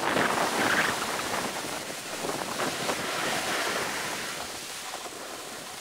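A rushing hiss, loudest in the first second and fading off through the rest.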